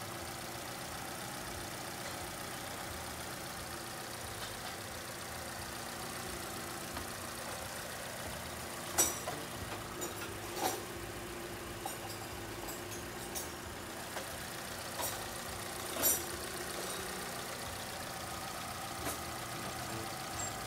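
2017 Hyundai Tucson engine idling steadily with the A/C running while the system is charged with R-134a refrigerant. A few sharp clicks and knocks about halfway through and again near the two-thirds mark.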